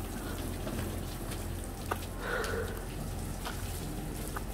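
Water from a hose spraying onto a golf cart's canopy and pattering down, over a steady low hum.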